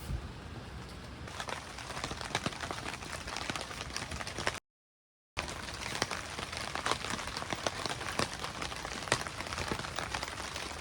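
Steady rain falling, with many separate heavy drops striking close by. The sound cuts out completely for under a second about halfway through.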